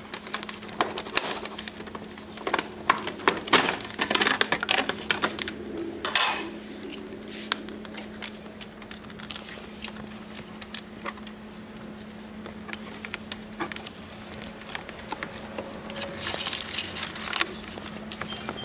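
Hands working among a motorcycle's wiring and plastic fairing: a busy run of small clicks, crackles and rustling, thickest in the first several seconds and again briefly near the end, over a steady low hum.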